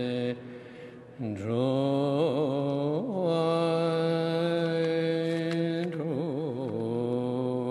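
Tibetan Buddhist prayer chanted by a man's voice in long, drawn-out notes with wavering ornaments, breaking off briefly for a breath about a second in.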